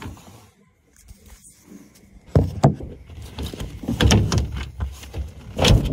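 Gear being shifted around in a pickup truck bed: a run of knocks and thumps, the heaviest about two and a half seconds in, around four seconds in and near the end.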